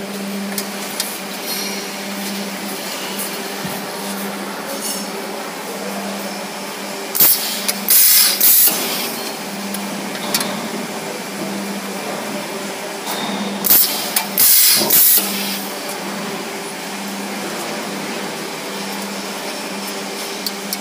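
C-frame rivetless riveting machine humming steadily, with two press cycles about six seconds apart, each heard as a short burst and then two longer bursts of loud hiss.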